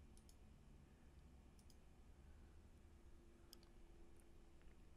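Near silence: room tone with a few faint computer mouse clicks as an answer is selected and the next question is brought up.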